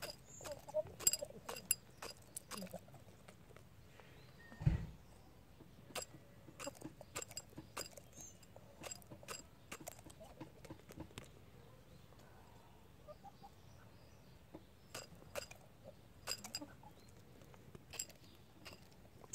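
Chickens pecking feed pellets out of a drinking glass held in a hand: irregular sharp taps and clinks of beaks on the glass, with one dull thump about five seconds in.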